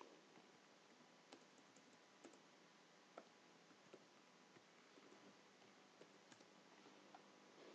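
Near silence with a few faint, irregularly spaced computer keyboard keystrokes.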